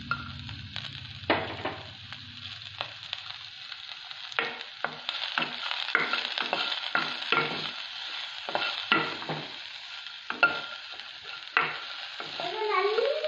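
Chopped shallots sizzling in hot oil in a kadai. From about four seconds in, a wooden spatula stirs them, scraping and knocking against the pan about once or twice a second.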